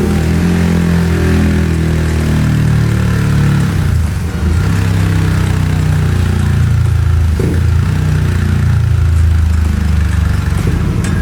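Yamaha XSR155's 155 cc single-cylinder four-stroke engine running through a Yoshimura GP-Magnum full-system exhaust, the engine speed changing, with a dip about four seconds in.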